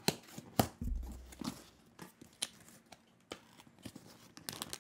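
Cardboard box being handled and picked at: scattered sharp clicks and taps, the loudest just over half a second in, with a low thump about a second in.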